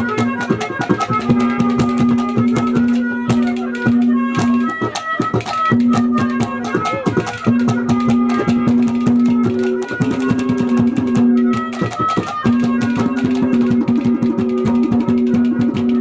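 Live Haryanvi ragni accompaniment playing an instrumental interlude: rapid hand-drum strokes under a melody instrument holding long notes in phrases of a few seconds.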